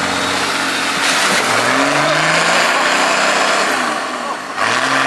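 Off-road 4x4's engine revving hard in thick clay, the revs climbing, falling off about four and a half seconds in, then climbing again near the end, over a steady hiss of spinning tyres churning mud and water.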